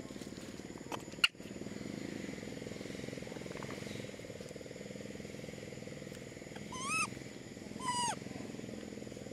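Two short, squeaky calls about a second apart near the end, each rising then dropping in pitch, typical of a young macaque. A sharp click comes about a second in, over a steady low rumble.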